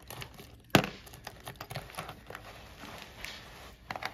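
Hands rummaging through a pile of metal costume jewelry on crumpled paper: the paper crinkles and the metal pieces click against each other. There is one sharp clack under a second in, and a few more quick clicks near the end.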